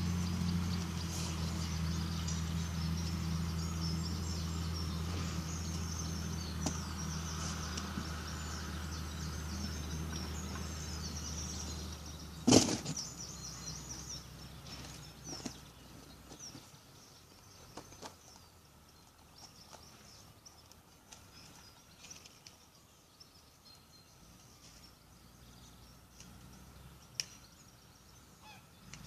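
Small birds chirping in the background over a low steady hum that fades away over the first half. One sharp knock comes about twelve seconds in, then the hum drops out, leaving faint bird calls and a few small clicks.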